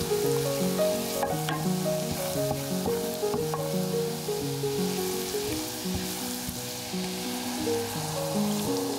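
Butter sizzling and foaming in a stainless-steel saucepan while a wooden spoon stirs it, with a steady hiss, over background music.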